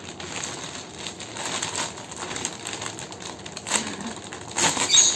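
Crinkling and rustling of a large plastic foil gift bag as it is handled and pulled open, with a louder crackle a little before the end.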